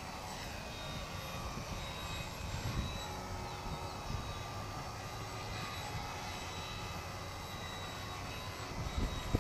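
Electric motor and propeller of a small foam RC aerobatic airplane whining in flight, the high whine bending in pitch now and then as the throttle changes. A low rumble runs underneath.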